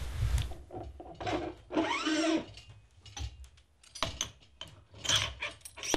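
Metal clicks, knocks and short scrapes of a collar being worked on the sleeve of an Eleiko barbell loaded with bumper plates.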